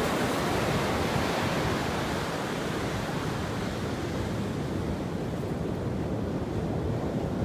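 Ocean surf breaking and washing onto the beach, a steady rush, with wind buffeting the microphone.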